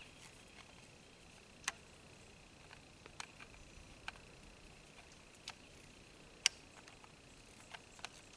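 Faint, irregular metallic clicks and ticks as a SilencerCo Osprey 45 suppressor is handled and threaded back onto an FNX-45 Tactical pistol's threaded barrel, with a sharper click about 6.5 s in, over a faint steady high hiss.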